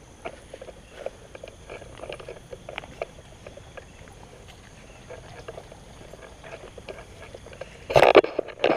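Footsteps on concrete pavement, soft irregular scuffs and taps, over a steady faint hiss. A loud rustling handling noise starts near the end.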